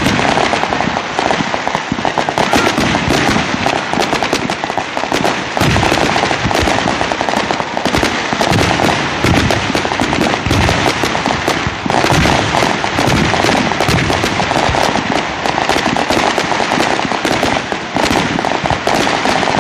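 Fireworks going off in a dense, unbroken run of rapid crackles and bangs.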